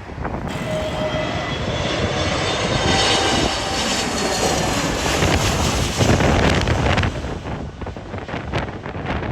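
An airliner passing close on its landing in strong wind: a broad engine noise with faint steady high tones builds to its loudest about two-thirds of the way in, then falls away. Gusts of wind buffet the microphone near the end.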